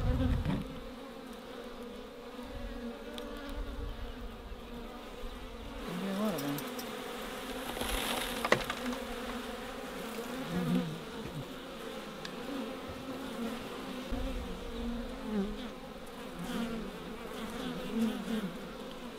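Honey bee colony buzzing from an open hive: a steady hum with louder buzzes coming and going as bees fly close. A single sharp click sounds about eight and a half seconds in.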